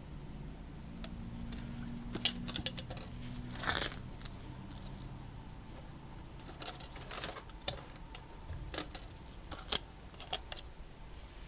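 Plastic cups and plastic drop-cloth sheeting being handled: scattered clicks and crinkles, with a louder crinkling rustle about four seconds in.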